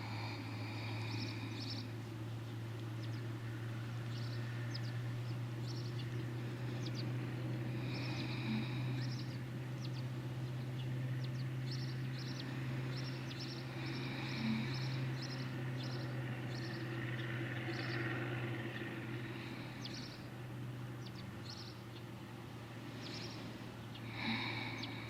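Small birds chirping and twittering in repeated short high notes, with a few longer warbling phrases, over a steady low hum.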